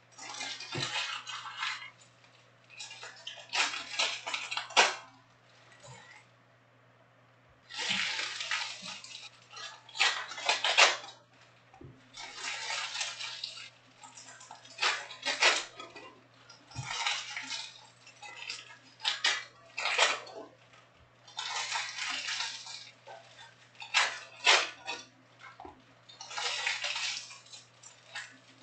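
Panini Prizm Premier League foil card packs being torn open and the cards handled, one pack after another: a crinkling rip-and-rustle about every two seconds, some ending in sharp clicks of cards being squared up.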